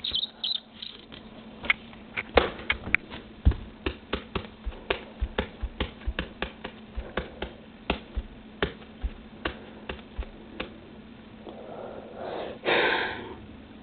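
An irregular run of sharp clicks and taps, about two to three a second, many with a dull thump under them, followed near the end by a brief rustle.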